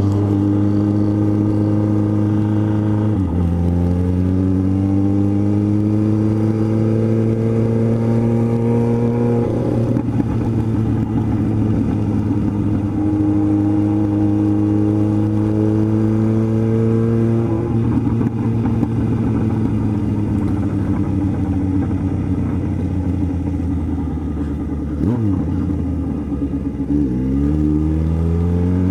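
Yamaha XJ6 inline-four motorcycle engine heard from the rider's seat while riding at low town speed. Its pitch climbs slowly and drops sharply at gear changes about three, ten and seventeen seconds in, then dips again near the end before climbing once more as the bike picks up speed.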